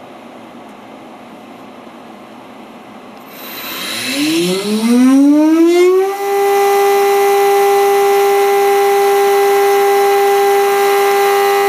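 Multicam MT22 CNC router spindle motor spinning up from rest about three seconds in, its whine rising in pitch over about two seconds, then holding a steady high whine at 24,000 RPM.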